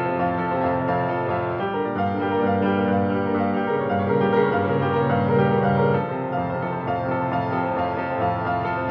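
Slow instrumental music of long held chords, with the chord changing about two seconds in and again about six seconds in.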